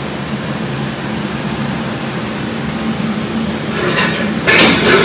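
Steady low hum in the kitchen. Near the end comes a short, loud burst of metal scraping: a spoon stirring potatoes in an aluminium pot.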